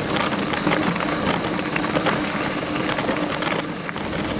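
Riding noise from a moving bicycle: steady wind rush on the microphone and tyre noise, with scattered light ticks and rattles.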